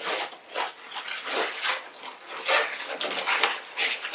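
Inflated latex twisting balloons squeaking and rubbing against each other as they are squeezed and shaped by hand, in a run of short, irregular squeaks.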